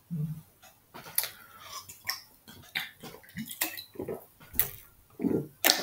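Irregular clicks and light knocks of small hard objects being handled, with a few low thuds in between.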